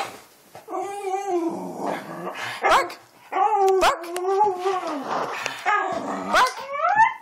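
Small dog 'talking': long, wavering whine-howls that rise and fall in pitch, with a short break about three seconds in. This is the excited begging noise of a dog coaxed with the promise of food.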